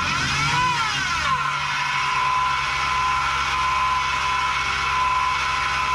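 Inside the cab, a 2019 Ram Rebel's engine running with a steady supercharger-like whine, its pitch sweeping up and back down in the first second and a half, then holding steady. The owner suspects a failing idler pulley bearing or a loose belt tensioner.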